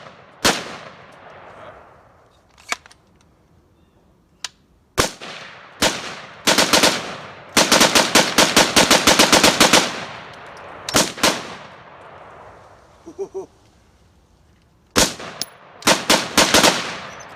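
AR-15 rifle fired with a Gat Crank trigger crank, each shot echoing. It goes in uneven stops and starts: scattered single shots, short strings, and one fast string of about ten shots a second lasting a couple of seconds. The crank keeps getting caught, which breaks up the firing.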